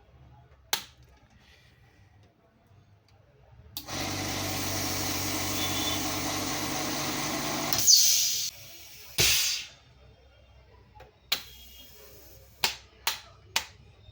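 A small machine motor runs steadily for about four seconds, then stops. Two short hissing bursts and several sharp clicks follow.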